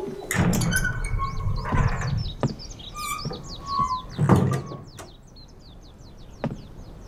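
Small birds chirping busily, many short quick chirps with a few clearer whistled notes, and a few soft low thuds in between, the loudest about four seconds in. The chirping thins out after about five seconds.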